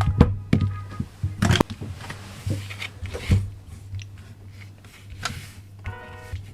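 Parts of a Hudson Nambu Type 14 model gun clicking and knocking as they are handled and fitted together. The clicks are irregular and sharp, the loudest right at the start and two more strong knocks about a second and a half and three seconds in, over a steady low hum.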